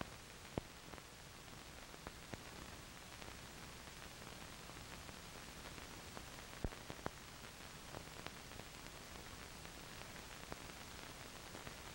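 Steady hiss of an old film soundtrack with scattered clicks and pops, the two loudest about half a second in and just past the middle. No music or voice.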